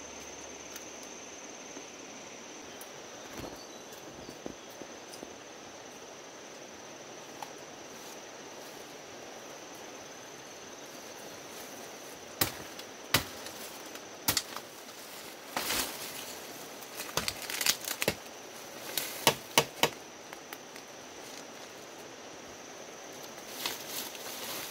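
A steady, high insect buzz carries on throughout. From about halfway in come a series of sharp crackles and snaps of dry leaves, twigs and stems, as someone moves through forest undergrowth.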